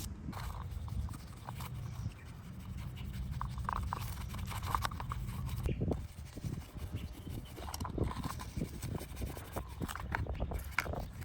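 Scrubbing and rubbing on a small die-cast alloy model ambulance: irregular scratchy brush or rub strokes with a few short squeaks.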